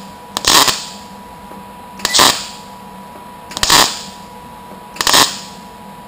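MIG welder stitch welding a sheet-steel patch panel in short bursts: four brief arcs, each well under a second, about one and a half seconds apart.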